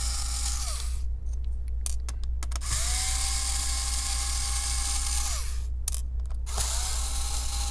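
Cordless electric screwdriver with a Phillips bit backing out laptop battery screws. Its motor whines in runs of a few seconds, each winding down with a falling pitch. Small clicks fall in the pauses between runs.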